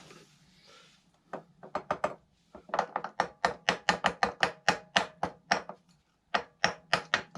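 Ratchet wrench clicking quickly in rapid strokes, about three to four a second with a short pause partway through, as a fastener on the Honda Z50 engine is worked loose.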